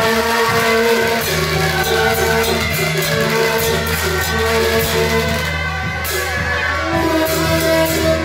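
Temple procession music: loud held wind-instrument notes, changing pitch every second or so, over repeated clashing percussion strikes.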